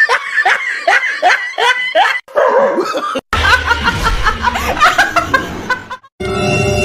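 A person laughing in quick repeated 'ha-ha' pulses, then, after a short break, a woman laughing hard in the same way. Music starts near the end.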